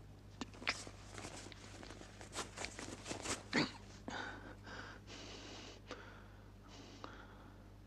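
Quiet rustles and small clicks of movement inside a tank crew compartment, then a few soft breaths, over a low steady hum.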